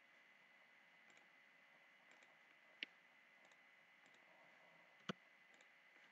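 Two sharp computer mouse clicks, one a little under three seconds in and one about five seconds in, with a few fainter ticks, over near-silent room tone.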